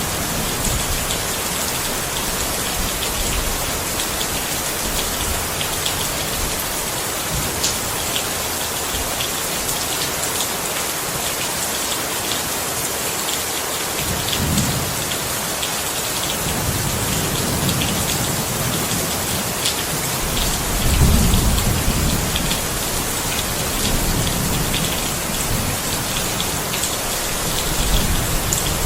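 Steady heavy rain falling, with fine drop patter over an even hiss. Low rumbles of thunder swell up a few times in the second half.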